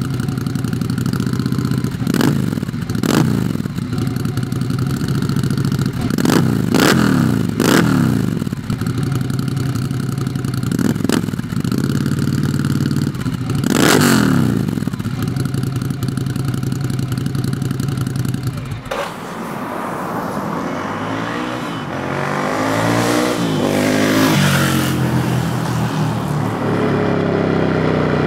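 Ducati Scrambler Desert Sled's 803cc V-twin through an Arrow exhaust with the baffle in, idling with about six sharp throttle blips in neutral. Around two-thirds of the way through it switches to the bike being ridden, the engine pitch rising and dropping through the gears.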